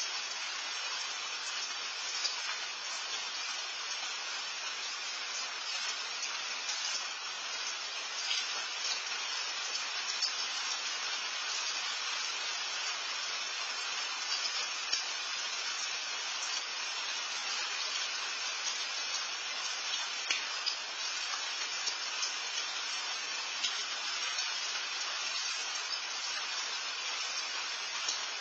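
Steady rain falling: an even hiss with scattered louder drops.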